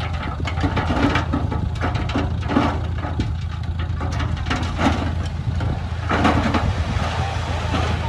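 Heavy diesel engine of earthmoving machinery running steadily, with irregular short bursts of noise over it.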